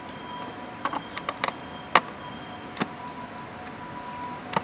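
Hard plastic clicks and knocks as the canopy of a Feilun FT011 RC boat is pressed onto the hull and its latch fastened: a quick cluster of small clicks about a second in, a sharper knock near two seconds, then a few single clicks.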